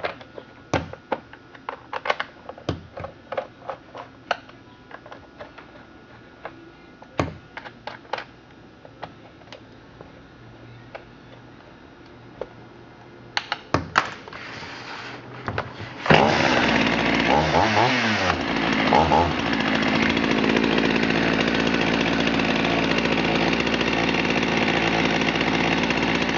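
Scattered clicks and knocks of the saw being handled, then about two-thirds of the way in a Husqvarna 51 chainsaw's 51cc two-stroke engine starts. It blips up and down in speed a few times, then runs steadily.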